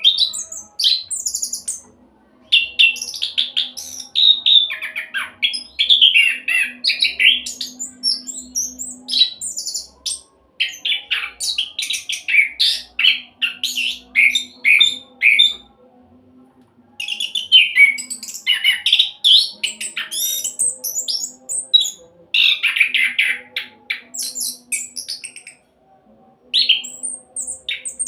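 Orange-headed thrush (anis kembang) singing its fast rolling song: long runs of rapid, varied high notes, broken by a few short pauses. A faint steady low hum sits underneath.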